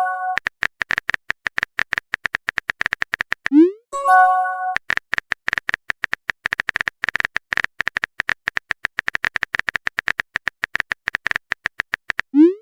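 Rapid, irregular clicking of a phone keyboard typing sound effect. About three and a half seconds in it stops for a short rising pop and a brief chime of several notes, a chat-message alert, then the clicking resumes and the rising pop comes again at the very end.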